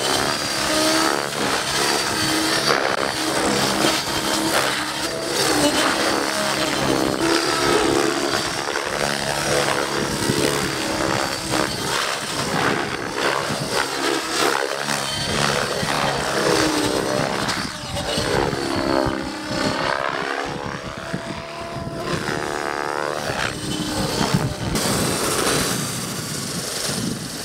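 Radio-controlled model helicopter flying 3D aerobatics: the main rotor and drive whir continuously, their pitch rising and falling again and again as the rotor speed and blade pitch change. There are several swooping rises and falls in the second half.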